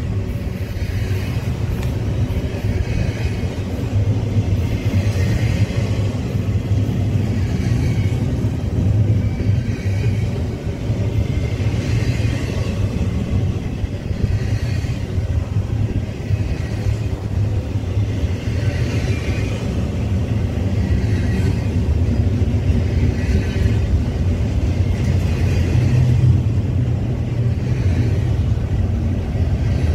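Double-stack intermodal freight train's well cars rolling past close by: a loud, steady low rumble of steel wheels on rail, with a higher rushing hiss that swells and fades every few seconds.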